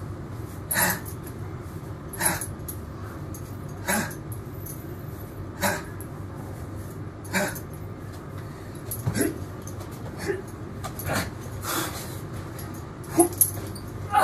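A man breathing hard after chained burpees: sharp, forceful exhales about every 1.7 seconds, coming quicker and more irregular in the last few seconds.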